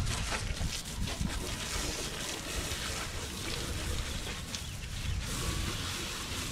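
Steady hiss of water spraying from a hose onto a boat's hull, with faint irregular patter.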